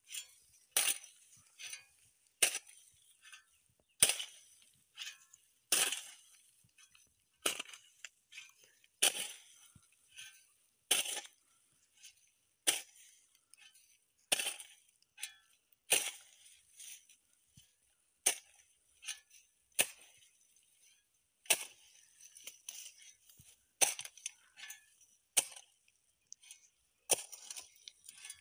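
Short-handled hand hoe striking and scraping dry soil, about one stroke every second and a half with fainter scraping between, as earth is drawn up and packed around the base of a young tree.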